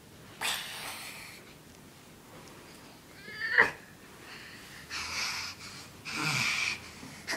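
A child breathing hard in several huffing, wheezy breaths while straining against a blanket wrapped tight around him, with one short strained vocal sound falling in pitch about three and a half seconds in.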